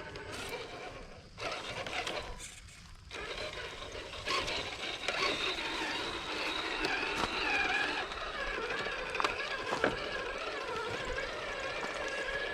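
Traxxas TRX-4 Sport RC crawler's electric motor and drivetrain whining as it crawls, the pitch rising and falling with the throttle from about four seconds in, with a few sharp clicks of the truck knocking on rocks.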